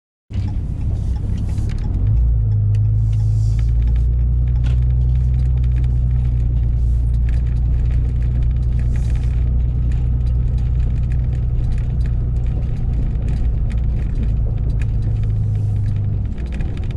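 Vehicle on the move: a loud, steady low engine and road rumble with light knocks and rattles. The rumble shifts about two seconds in and drops off near the end.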